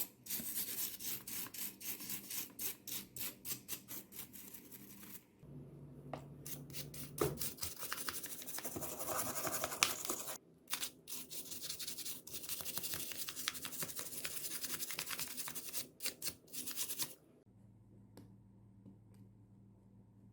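Rapid scrubbing strokes on small switch parts, at about four a second, running into continuous rubbing, then stopping abruptly near the end.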